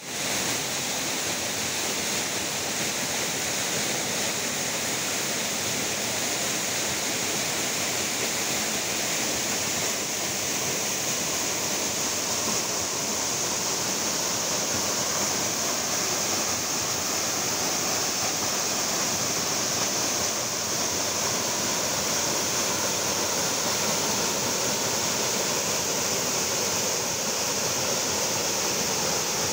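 Waterfall: a steady rush of falling water, holding level throughout.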